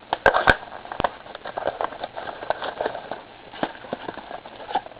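A cardboard trading-card box being handled and opened, with a few sharp clicks in the first second, then irregular small crackles and taps of cardboard and wrapper.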